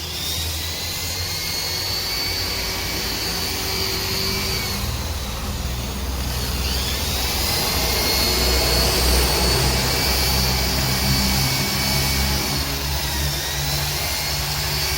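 A handheld power tool running with a high whine that spins up at the start and again about six and a half seconds in, its pitch dipping now and then as it bears on the work, over a low steady hum.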